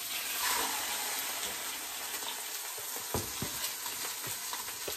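Skin-on salmon fillets sizzling in hot olive oil in a cast iron skillet, the sizzle swelling about half a second in as another fillet goes in skin side down. A few light knocks in the last two seconds.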